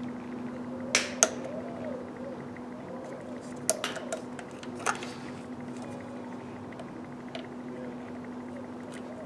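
Sharp clicks and taps of a screwdriver working plastic hose connector clips on an engine: two about a second in, then a quick cluster around four to five seconds in, over a steady low hum.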